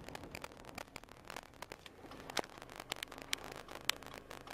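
Irregular crackling with scattered sharp clicks, a few louder ones in the second half, over a faint steady low hum.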